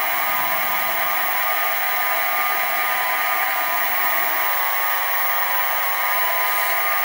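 Sieg SX2P mini-mill running at a steady speed while its spindle drives a centre drill into a metal block to drill a pilot hole: an even motor and gear whine with several steady tones.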